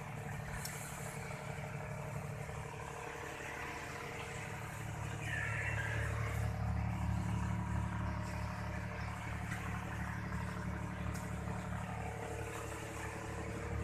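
An engine running steadily with a low, pulsing hum, growing louder about six seconds in.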